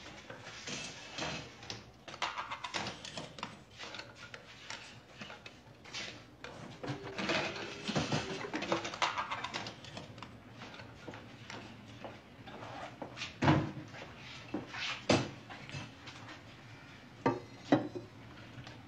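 People moving about a small room: scattered knocks, clatter and shuffling of chairs, tables and glasses being handled. There is a short squeaky scrape about halfway through, and several sharp knocks near the end.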